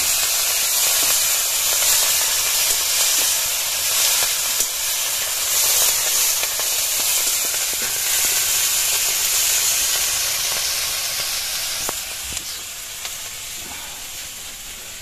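Wet wasp larvae frying in hot oil in a steel wok: a loud, steady sizzle that slowly dies down over the last few seconds, with the odd click of the stirring spoon.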